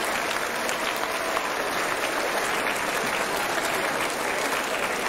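A large seated audience of students and staff applauding steadily, many hands clapping at once, for an award presentation.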